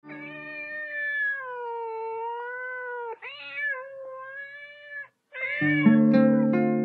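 A cat meowing: one long drawn-out meow that sinks and rises in pitch, then two shorter meows. About five and a half seconds in, a jazz backing track comes in with sustained chords and a steady bass.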